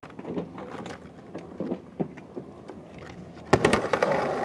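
A few faint taps and knocks, then about three and a half seconds in a skateboard clatters loudly against the ground and its wheels roll on steadily.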